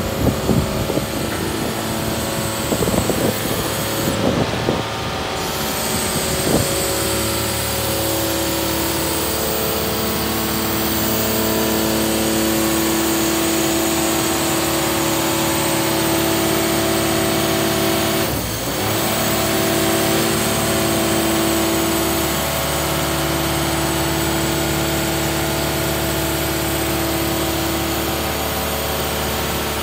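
Engine and hydraulic pump of a Hammar container side-loader running steadily, a droning hum with a few held pitches while the crane arms work the container. A few thumps sound in the first seven seconds, and the hum dips briefly about 18 seconds in.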